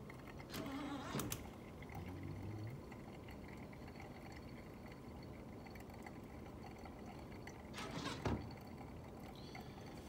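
Brewed pour-over coffee draining through the filter and dripping into a glass carafe: a faint, steady trickle. Brief knocks or handling sounds come about a second in and again near eight seconds.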